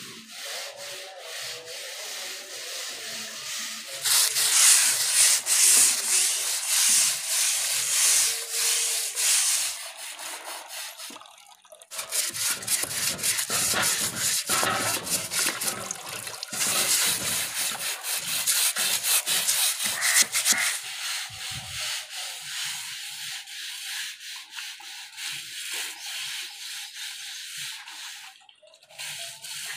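Wet scrubbing by hand of a painted wooden charpai and its woven rope with a soapy scrubber. It makes a rasping rub that comes in long stretches, loudest from about 4 to 10 seconds in and again from about 12 to 21 seconds, with short pauses between.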